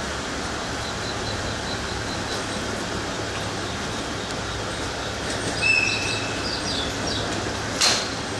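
Short high-pitched whistle from an EF64 electric locomotive, signalling departure, over the steady hum of the standing train. A single brief sharp noise follows near the end.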